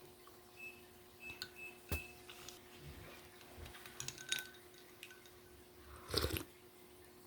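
Ice and glass clinking: a few light clicks with short ringing pings, a sharper clink about two seconds in and a cluster of clinks around four seconds. A louder short burst of noise follows about six seconds in.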